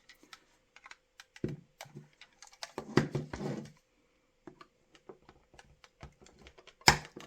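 Small irregular clicks, taps and creaks of plastic and metal as the roof of a Corgi Optare Delta die-cast model bus is prised loose at the back, with a denser cluster about three seconds in and one sharper click near the end.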